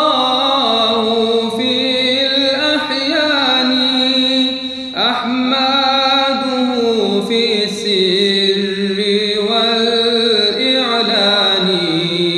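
Male voice chanting an Arabic nasheed in long, drawn-out melismatic notes, with a new phrase starting about five seconds in.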